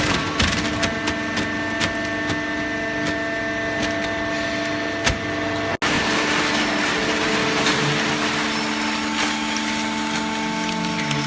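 Hydraulic waste-paper baler running: a steady machine hum of motor and hydraulic pump, with scattered clicks and knocks. The sound cuts out for an instant a little before the middle, and the hum's pitch shifts lower near the end.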